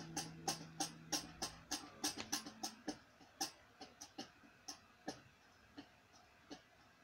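An acoustic guitar chord ringing out and dying away. Over it comes a run of light clicks or taps, about three a second, that grow fainter and further apart.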